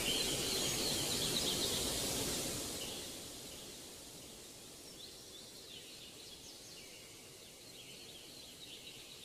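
Soft outdoor ambience: a steady hiss with faint bird chirps, the hiss dropping lower about three seconds in.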